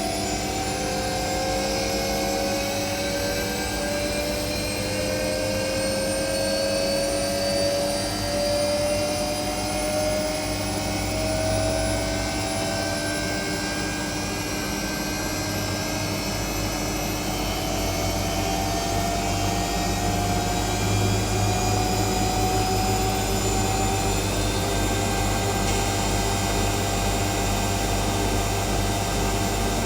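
Whirlpool Indiana 1400 washing machine with its drum spinning at speed. The motor's whine rises slowly in pitch over a steady low hum, typical of the drum accelerating in a spin cycle.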